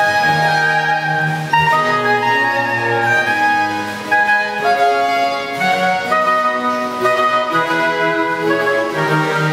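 Baroque orchestra playing: bowed strings with a cello bass line, in sustained notes that move from chord to chord.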